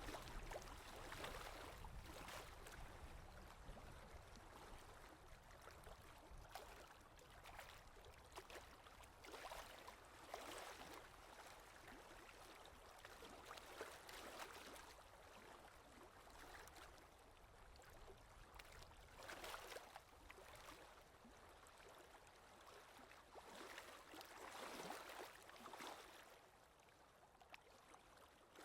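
Faint scratchy rubbing of oil pastel on paper in repeated strokes, swelling and fading every second or two.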